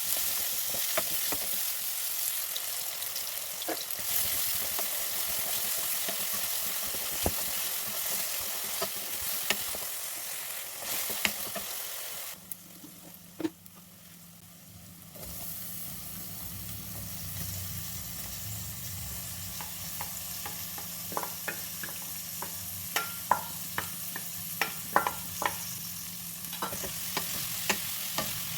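Food sizzling in hot oil in a frying pan, stirred with a utensil. The sizzle dips for a few seconds about twelve seconds in, then resumes, with many sharp clicks and taps of the utensil on the pan in the second half.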